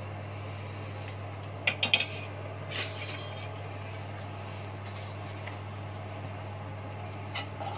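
A spoon clinking and knocking against a kadai and a ghee container while ghee is scooped into the pan: a quick cluster of clinks about two seconds in, then a few single knocks, over a steady low hum.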